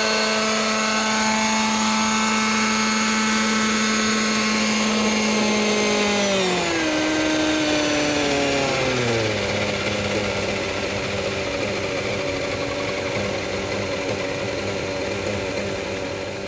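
Trex 600 radio-controlled helicopter running at hover, a steady high-pitched hum. About six seconds in, after it sets down, it winds down in pitch over about three seconds, then runs on at a lower steady speed.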